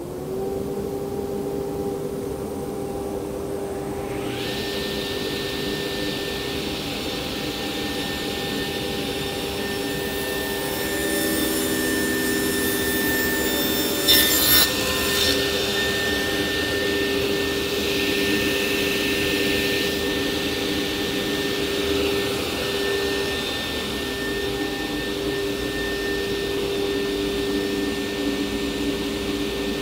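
Martin sliding table saw coming up to speed and running steadily, with a rushing noise of dust extraction that comes in about four seconds in, as the blade cuts a taper along a wooden leg. A brief louder burst comes about halfway through.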